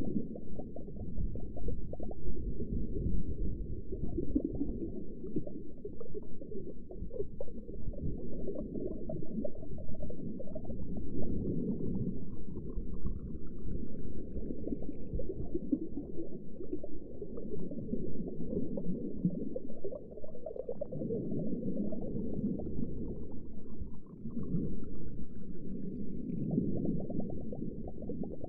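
Underwater ambience: muffled, low bubbling and gurgling water over a steady rumble. A faint rising whistle sweeps up twice, around the middle and again later on.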